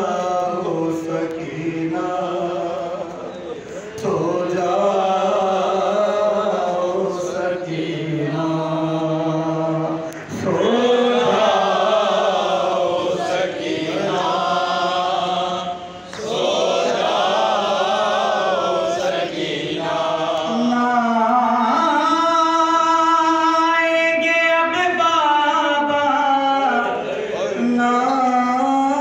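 A man's voice singing a noha, a Shia mourning lament, through a microphone in long, drawn-out, wavering notes, with short breaks between phrases.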